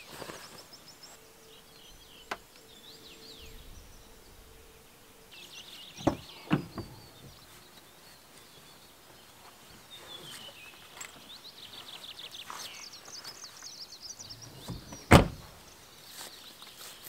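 Small birds singing throughout, with a couple of knocks about six seconds in. Near the end a car door is shut with one loud thunk, the loudest sound here.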